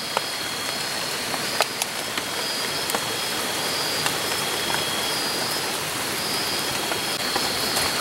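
Night insects calling in steady high-pitched trills, one of them in repeated pulses, over a steady hiss, with a few scattered sharp clicks.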